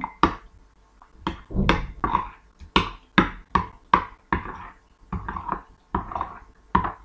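A metal utensil stirring yogurt mixed with baking soda and baker's ammonia in a ceramic bowl, clinking and knocking against the bowl about twice a second.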